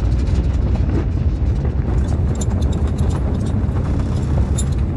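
Spacecraft landing sound effect: the deep, steady rumble of descent engines, with a light crackle over it.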